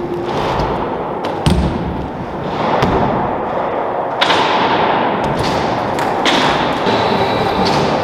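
BMX bike tyres rolling on skatepark ramps, with sharp thumps and knocks of the bike hitting the ramp surface, the clearest about one and a half and three seconds in. The rolling grows louder about four seconds in.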